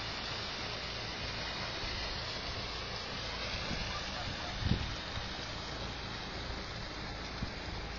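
Steady rushing noise with a brief low thump about halfway through.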